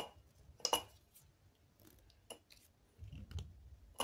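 Faint handling sounds of fingers pulling monofilament fishing line tight on a trilene knot at a swivel: a few scattered soft ticks and rustles, with a low rumble of handling around three seconds in.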